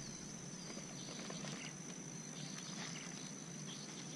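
Insects, likely crickets, droning as a steady high-pitched tone, with faint rustling and light clicks of the bait and cage being handled.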